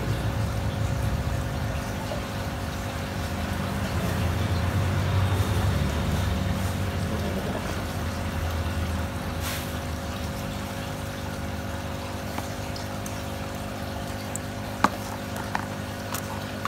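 Aquarium water trickling steadily, with a low steady hum under it and a few light clicks near the end.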